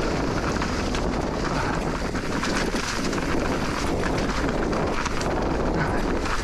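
Wind rushing over the microphone while a 2022 Specialized Turbo Levo Alloy e-mountain bike rolls over a rough dirt trail. Under the wind there are many small knocks and rattles from the tyres and bike.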